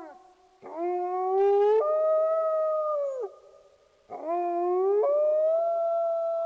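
Wolf howling: two long howls, each rising in pitch, stepping higher partway through, holding steady, then dropping away at the end.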